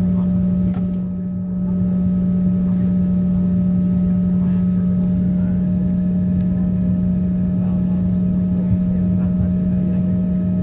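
Airliner cabin drone: a loud, steady low hum with fainter higher whining tones over a rumbling background, from the aircraft's running machinery and air system heard from a passenger seat.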